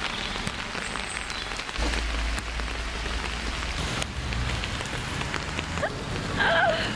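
Steady rain falling, with individual drops ticking sharply close by. A low rumble runs from about two to four seconds in, and a brief wavering high-pitched call near the end is the loudest sound.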